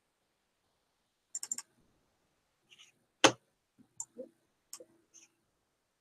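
Scattered clicks from a computer mouse and keyboard: a quick group of three or four about a second and a half in, one louder click just past three seconds, then several softer ones.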